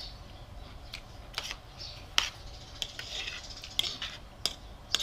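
Metal spoon and fork clinking and scraping against a plate of rice while eating, with several sharp clinks, the loudest a little past two seconds in.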